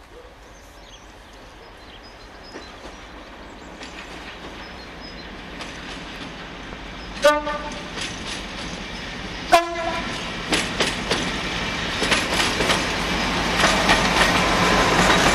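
Diesel locomotive approaching and passing, its engine and wheel noise growing steadily louder. Two short horn blasts sound about halfway through, two seconds apart, the second lower in pitch, and the wheels clatter over rail joints as it draws level.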